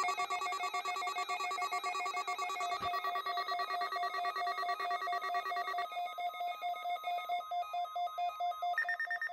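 NOAA Weather Radio warning alarm test: the 1050 Hz alert tone sounds together with weather radio receivers' alarms, which beep rapidly at several pitches at once. It starts suddenly, and the mix of pitches shifts about three and six seconds in.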